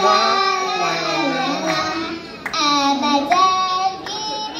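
Young girls singing a song together, holding long notes with short breaks between phrases.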